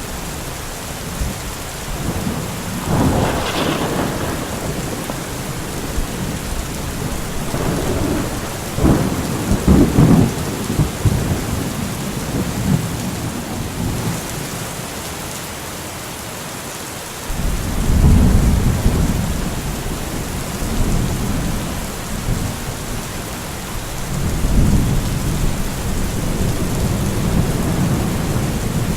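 Steady heavy rain with rolling thunder: a sharp crack about three seconds in, a cluster of claps around nine to ten seconds, then long low rumbles that start abruptly near the middle and again toward the end.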